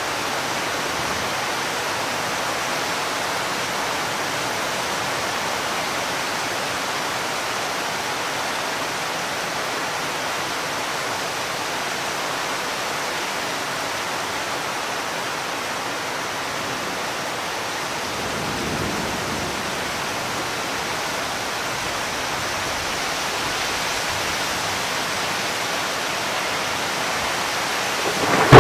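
Steady hiss of rain during a thunderstorm, with a faint low rumble of distant thunder about two-thirds of the way through.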